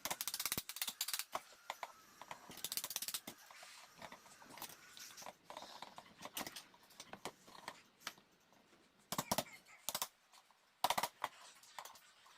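Irregular sharp clicks and short scrapes of small hand-tool work on a microphone's hard casing and parts, in clusters with quieter gaps between them.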